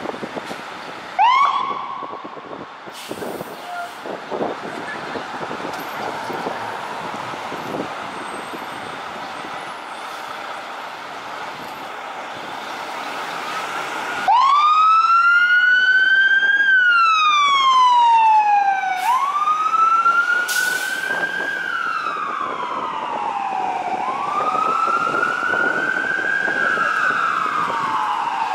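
Siren of a 1997 Pierce Quantum fire engine responding: a short rising blip about a second in, then, about halfway through, a loud wail starts that rises and falls slowly every four to five seconds. Street traffic and engine noise lie underneath.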